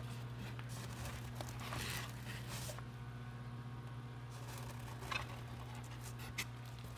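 Handling noise around a foam incubator and plastic egg tray: rustling and scraping for the first few seconds, then a few short soft clicks, over a steady low hum.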